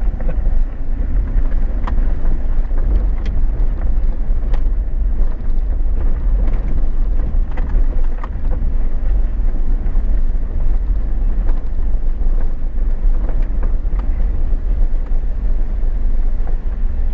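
Chevy Silverado 4x4 pickup driving slowly over a rough dirt road, heard from inside the cab: a steady low rumble of engine and tyres, with scattered clicks and knocks from the bumpy ride.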